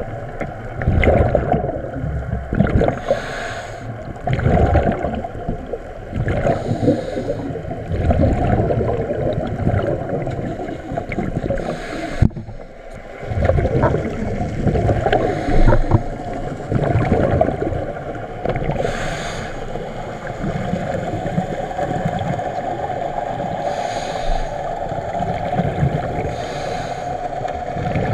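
Scuba breathing heard underwater: bursts of bubbling from exhaled air every few seconds, with a short hiss of the regulator on some inhales.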